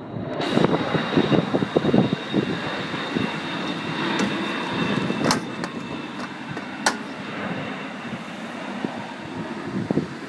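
Wind buffeting the microphone in gusts, strongest in the first couple of seconds, with a few sharp clicks midway as the car's bonnet is released and lifted.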